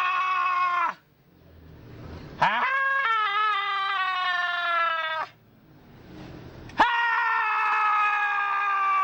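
A voice wailing in long held cries, each three to four seconds long and sliding slowly down in pitch. Each cry breaks off into a short pause with a faint rising rush before the next one starts sharply: one cry ends about a second in, a full one follows, and another begins near the end.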